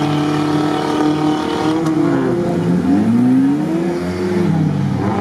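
Several off-road 4x4 engines revving hard under load, two or more at once, their pitch climbing and falling as the vehicles fight through mud.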